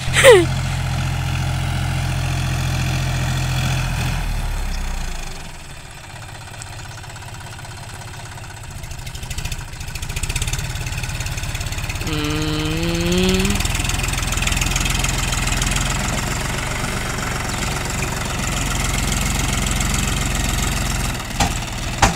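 John Deere 5050D tractor's three-cylinder diesel engine running under load as it hauls a heavily loaded straw trolley, dropping quieter about five seconds in and building up again from about ten seconds. A sharp falling sweep at the very start, and a short rising pitched tone about twelve seconds in.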